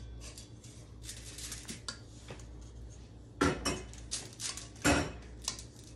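Metal tongs clinking and scraping against a stainless steel mixing bowl as baking potatoes are turned in melted butter: a string of light clicks, with two louder clanks about three and a half seconds and five seconds in.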